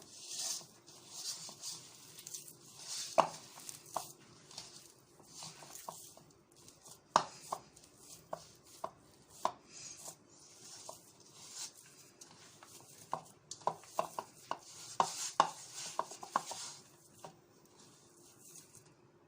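Semolina and flour being mixed with water in a bowl: bursts of gritty scraping with many sharp knocks against the bowl, uneven and tapering off near the end.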